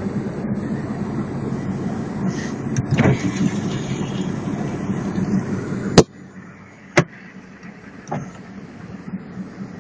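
Car engine idling, heard from inside the cabin as a steady low rumble. About six seconds in a sharp click comes and the rumble stops, followed by another sharp click a second later.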